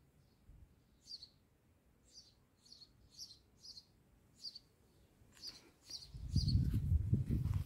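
A small bird calling with short, high chirps, about one every half second. From about six seconds in, a louder low rumble covers the bottom of the sound.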